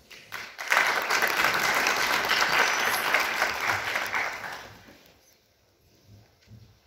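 Audience applauding, starting about a second in and dying away after about four seconds.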